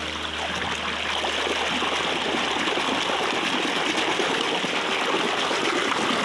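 Fast-flowing shallow river water rushing and splashing steadily, as a muddy toy car is swished through the current by hand.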